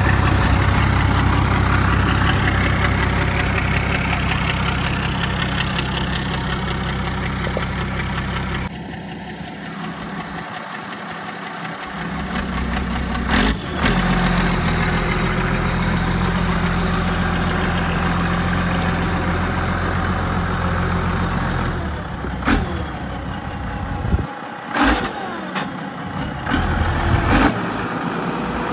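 Ford 7840 tractor's six-cylinder turbo diesel engine idling steadily. The sound changes abruptly about a third of the way in, and a few short sharp knocks come in the second half.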